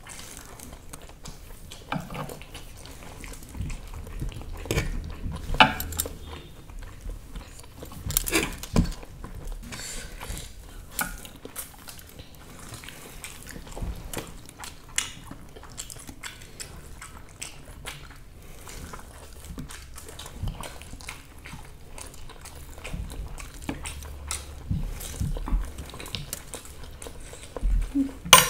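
People eating masala Maggi instant noodles: chewing and biting, with scattered short clicks of cutlery against plates.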